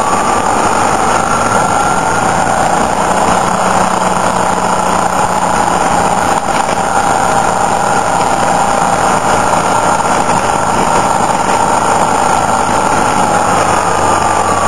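Motorcycle engine running steadily under way, over a steady rush of wind and road noise; the engine note drops slightly near the end.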